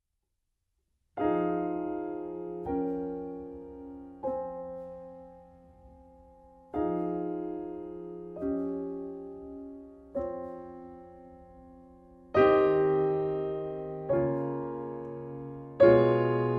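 Solo piano playing slow chords, each struck once and left to ring out and fade, in three groups of three; the third group is louder and fuller than the first two. The first chord comes after a little over a second of silence.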